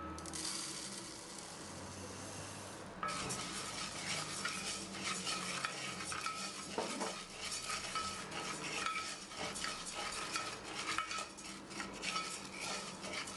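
Melted butter sizzling in a pot, then from about three seconds in dry couscous grains being stirred and scraped around the nonstick pot with a wooden spoon, a dense rustling with frequent light scrapes as the couscous toasts in the butter.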